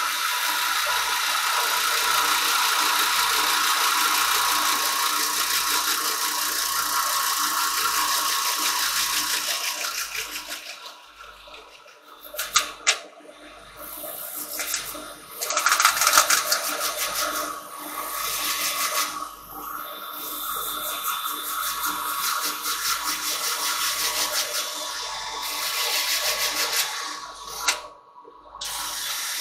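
Cordless drill spinning a sanding pad against a silver birch bowl turning on a wood lathe: a steady whirring hiss of abrasive on wood. In the second half the hiss drops away and comes back several times as the pad is eased off and reapplied, with a few sharp clicks.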